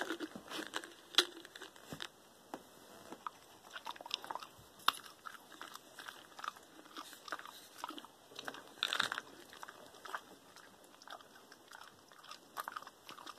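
A beagle chewing her medicine: irregular crunches and clicks of her teeth, with a denser run of them about nine seconds in.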